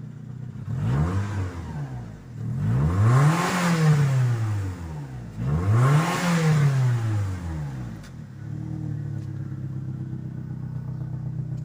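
VW Gol G3's 1.0 16-valve four-cylinder engine free-revved three times, a short blip then two bigger revs that rise and fall, before settling to a steady idle. The exhaust is cut open mid-muffler and vents through a homemade, tack-welded tip, giving the modified note.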